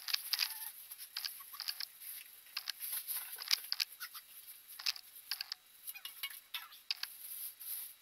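Plastic bag wrapping a new tower space heater crinkling and rustling as it is pulled off and the heater is lifted from its cardboard box, in quick, irregular crackles.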